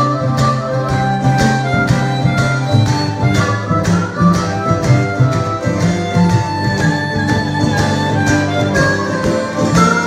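Blues harmonica solo over a steady guitar rhythm in a country-blues song: long held harmonica notes and short phrases riding on the guitar's regular beat.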